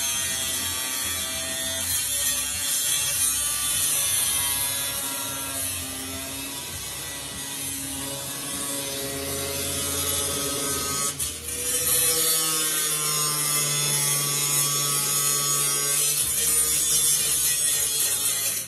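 Power tool running continuously on the steel of a 1973 Dodge Challenger's body: a whine that wavers in pitch with the load, over a steady hiss. It falters briefly about eleven seconds in and runs louder after that.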